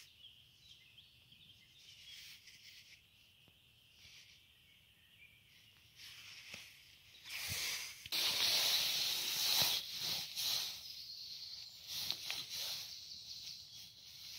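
Hands scratching and rustling through loose soil and leaf litter. It is quiet at first; about eight seconds in it turns into a loud scratchy hiss, followed by shorter scrapes.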